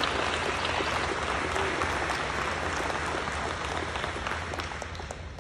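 Audience applauding, fading away toward the end.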